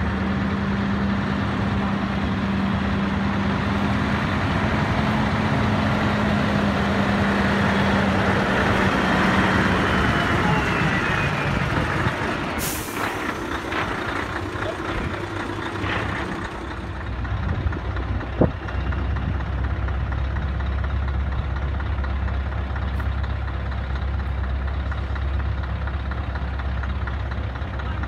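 Scania trucks with straight-pipe exhausts driving slowly past at close range, their big diesel engines running loud with a steady droning note. About halfway through an air brake lets out a short sharp hiss, and from there on a deep, steady low rumble of a truck engine close by.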